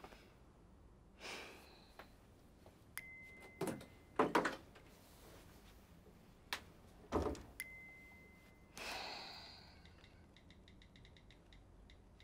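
Quiet room sounds with a woman's soft breaths and sighs, twice broken by a short steady phone tone lasting about a second. Near the end comes a quick run of light smartphone keyboard taps as a text reply is typed.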